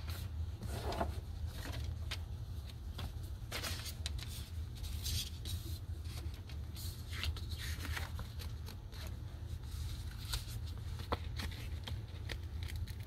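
Paper leaflets and a card packaging insert rustling, sliding and clicking as gloved hands handle them, in scattered short bursts over a steady low hum.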